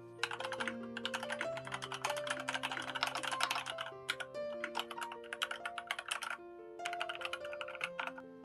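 Fast typing on an A2 Key3 wired mechanical keyboard with white switches, in three bursts of rapid keystroke clicks, over background music.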